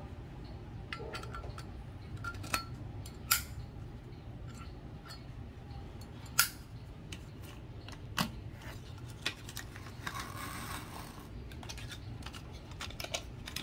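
Zippo lighters being handled, giving scattered sharp metallic clicks and knocks, with a short rustle about ten seconds in.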